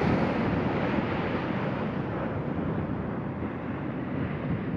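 Steady wind on the microphone over the wash of surf on a beach.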